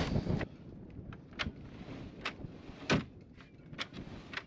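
A wooden cabin door being handled by hand, giving about half a dozen light knocks and clicks, the loudest about three seconds in. The door is being tested to see whether it still closes after being forced.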